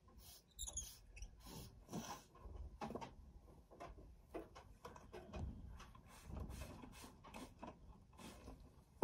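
Faint scratchy strokes at irregular intervals as a horse's tail is brushed, with a brief high squeak about a second in and a sharp click at the very end.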